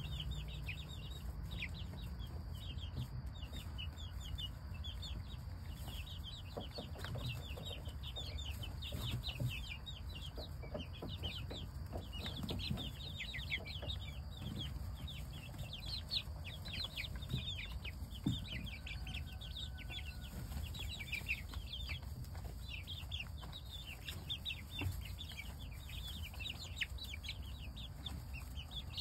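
A flock of young chickens peeping continuously, with many short, high chirps overlapping one another. Faint rustles and clicks come from them scratching and pecking in straw hay, over a steady low rumble.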